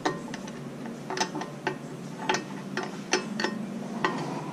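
Irregular metal clicks and clinks, about a dozen in all, of a wrench working on the hydraulic hose fittings of a tractor loader's third-function valve.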